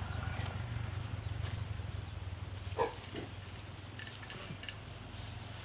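A steady low hum with a single short animal call about three seconds in, and a few faint clicks.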